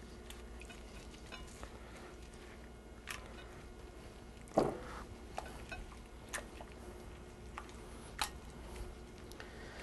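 Faint wet squelching of raw chicken thighs being kneaded by a rubber-gloved hand into a thick yogurt-and-spice marinade, with a few short, sharper clicks.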